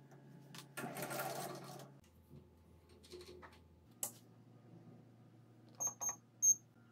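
Three short, high electronic beeps near the end from the keypad of a SINO SDS6-3V lathe digital readout as its buttons are pressed. Before them, about a second in, comes a scraping rattle lasting about a second, and then a few light clicks.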